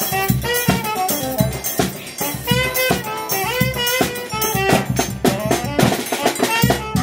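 Live instrumental trio: a saxophone plays a melody over a piano accordion, with a zabumba bass drum beating a steady rhythm.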